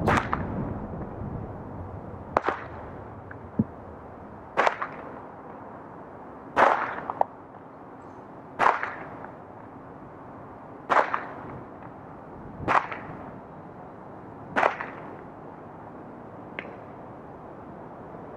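A sharp swishing snap repeating about every two seconds, nine times in all, the last one faint, over a steady background hum.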